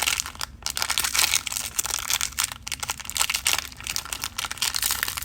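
Plastic and cardboard toy packaging crinkling and rustling, with many small clicks and taps, as a mystery compartment of the box is opened.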